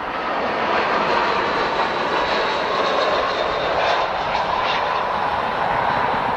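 Jet airliner's engines passing close by: a loud, steady rush with a high whine running through it, swelling up just at the start.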